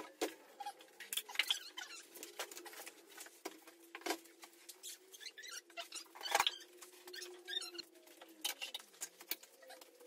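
Irregular clicks, taps and scuffs of a KTM EXC dirt bike being wheeled in by hand with its engine off, a few sharper knocks among them, over a faint steady hum.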